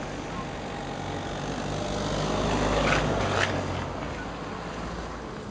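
Car engine and tyre noise heard from inside a moving car on a snow-covered street. The noise swells to a peak about three seconds in, as an oncoming car passes, and then eases off.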